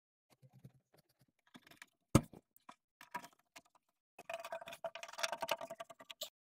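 Scissors cutting through ribbed carpet mat: scattered snips and one sharp click a little after two seconds, then a dense run of crunching snips from about four seconds in.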